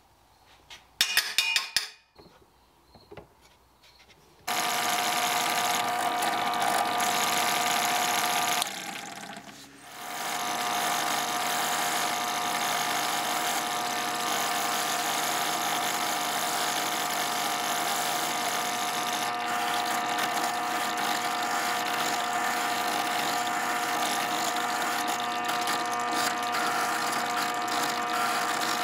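Drill press turned into a spindle sander, its motor running a sanding drum in the chuck with a steady hum of several fixed tones. It starts about four seconds in after a few light clinks, dips and builds back up about nine seconds in, and a wooden block is sanded against the spinning drum.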